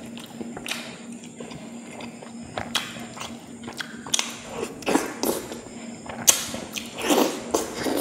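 Mouth sounds of someone eating pangas fish curry: irregular wet smacks, chews and clicks, more frequent and louder in the second half, over a steady low hum.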